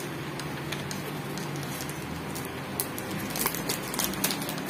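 A few light, irregular clicks and taps from a small clip-on microphone being handled, most of them in the second half, over a steady low background hum.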